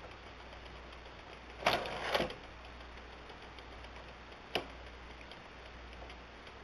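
Hand-cranked automaton's wooden gears, cams and levers turning, with faint ticking under a loud two-part wooden clatter about one and a half seconds in as the cat figure lunges forward, then a single sharp click a few seconds later.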